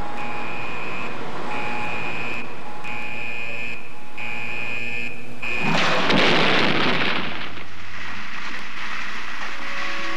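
A high electronic beep repeating about five times, each beep about a second long. About six seconds in, a vertical gas gun fires a pellet into a target with a loud rushing blast that fades away over a couple of seconds.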